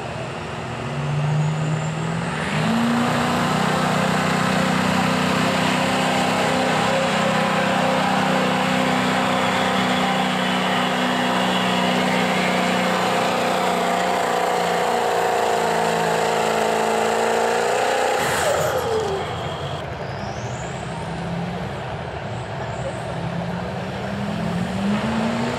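Modified Ford Super Duty diesel pickup pulling a weight-transfer sled: the engine runs hard and steady under full load for about seventeen seconds, with a high whine rising over the first couple of seconds. It falls away about eighteen seconds in as the pull ends, and near the end another diesel truck revs up.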